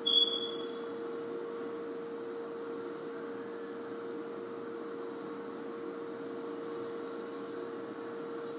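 Steady background hum with a faint hiss. A brief high-pitched tone sounds right at the start and is the loudest moment.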